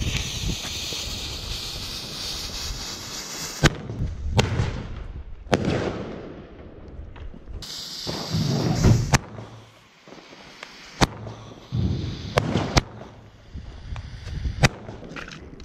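Consumer fireworks cake firing: a fuse hisses for the first few seconds, then about eight sharp bangs go off at uneven gaps of one to three seconds, several with a low launch thump around them.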